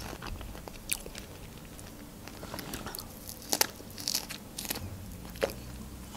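A person chewing a mouthful of fresh strawberry, with a few sharp mouth clicks and smacks spread through the chewing.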